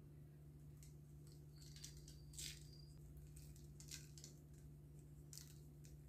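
Near silence over a steady low hum, with a few faint brief ticks and rustles as sesame seeds are pinched from a small plastic tub and sprinkled onto dough; the clearest comes about two and a half seconds in.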